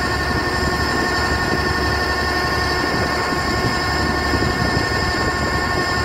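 Kubota SR40 combine harvester running steadily with its unloading auger engaged, discharging threshed rice into a trailer: an even engine rumble under a constant mechanical whine.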